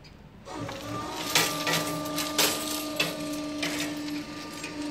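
Railway level-crossing equipment starting up: a steady humming tone begins suddenly about half a second in and holds. Several irregular metallic clanks sound over it.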